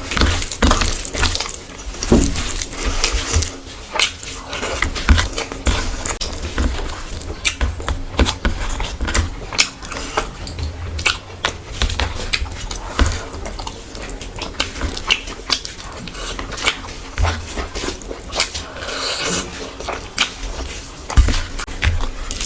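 Close-miked eating sounds: a person chewing and smacking food, with irregular wet clicks and mouth noises.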